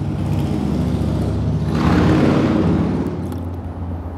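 Low, steady motor-vehicle rumble that swells to its loudest about two seconds in and then eases off, like a vehicle going by.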